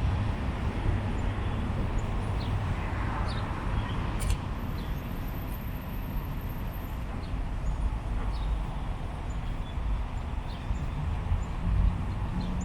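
Outdoor ambience: a steady low rumble with scattered short, faint bird chirps, and one sharp click about four seconds in.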